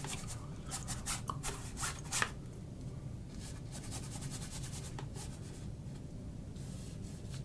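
Paintbrush scratching oil paint across a canvas in quick repeated strokes for the first two seconds or so, then a few fainter, sparser strokes as the brush works paint on the palette.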